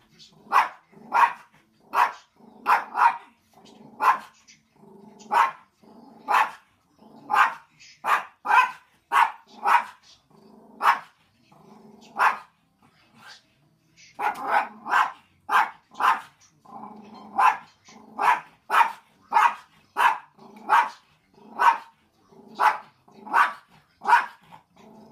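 A curly-coated dog barking at the television: a long run of sharp barks about one a second, with a short break about halfway through.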